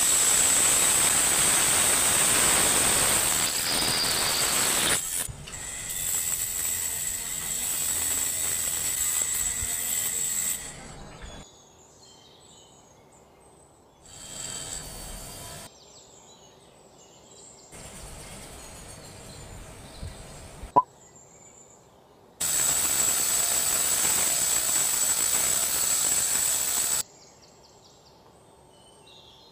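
Small rotary tool's cut-off disc grinding through a thin metal rod: a loud, even hiss with a steady high whine. It stops and starts abruptly several times, with quieter stretches between, and there is a single sharp click about two-thirds of the way through.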